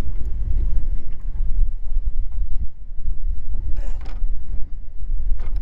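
Wind buffeting the microphone aboard a small fishing boat: a steady low rumble, with a brief fainter sound about four seconds in.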